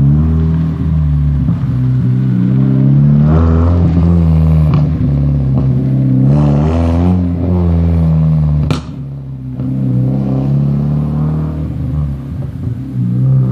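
1996 Mazda Miata four-cylinder engine through a decatted, straight-through stainless cat-back exhaust and racing muffler, accelerating hard as the car drives off. The revs climb twice with a gear change between, then a single sharp exhaust pop comes about nine seconds in as the throttle lifts, and the engine sound drops off after it.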